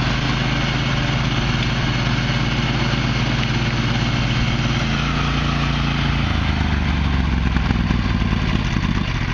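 Husky riding lawn mower's 22 HP engine running steadily, its pitch stepping down about five seconds in and again about six seconds in.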